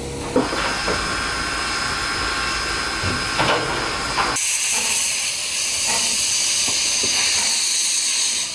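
Steam locomotives hissing steam. About four seconds in, the hiss turns higher and brighter as a small tank locomotive blows steam from its cylinder drain cocks. There is a short knock near the start and another at about three and a half seconds.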